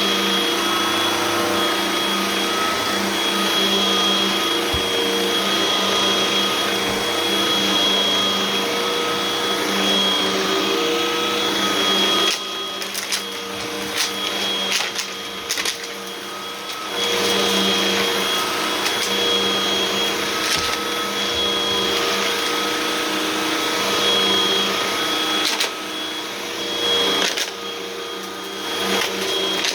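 Hoover vacuum cleaner running with its brushroll spinning: a steady motor hum and airflow hiss. About halfway through and again near the end the sound drops in level for a few seconds, with clicks and knocks.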